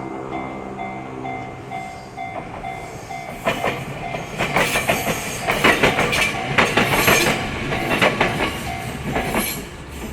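Japanese railway crossing bell ringing in a steady repeating clang while a Kumamoto Electric Railway train passes. Its motor hum gives way, about three and a half seconds in, to a loud run of wheel clacks over the rail joints that lasts until near the end.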